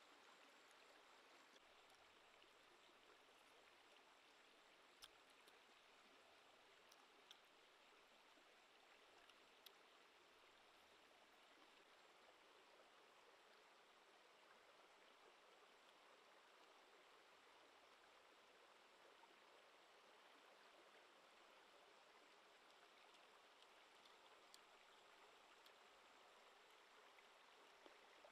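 Faint, steady rush of a nearby stream, with a few soft clicks.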